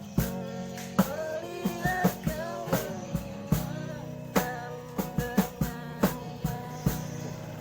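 Pop-rock band music: a drum kit hitting a beat over guitar, with a melody line that bends in pitch.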